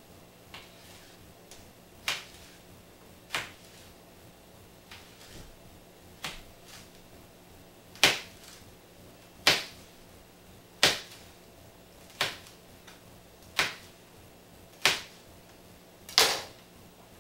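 Chef's knife chopping bell pepper on a plastic cutting board: single slow strokes knocking on the board, about one every second and a half, louder in the second half.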